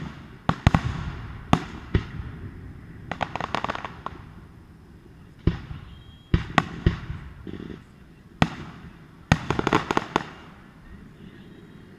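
Aerial fireworks shells bursting in a string of sharp booms, irregularly spaced, each with a short rumbling tail. Twice, about three seconds in and again near ten seconds, a burst breaks into a quick run of crackles.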